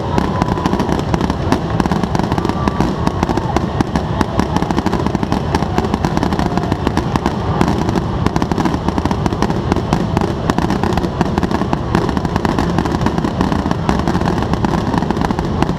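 Aerial fireworks going off in a dense, rapid barrage: shell bursts and crackle follow one another with no pause, at a steady, loud level throughout.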